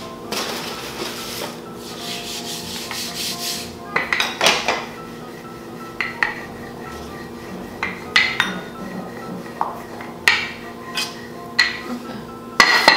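Wooden rolling pin rolling out peanut butter dough on a countertop: a rubbing sound for the first few seconds, then several sharp knocks a second or two apart as the pin is handled on the counter.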